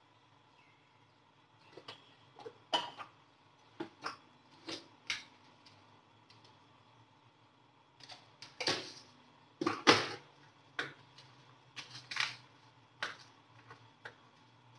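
Scattered light clicks and knocks of kitchen things being handled on a counter, starting about two seconds in, with the loudest two near the middle.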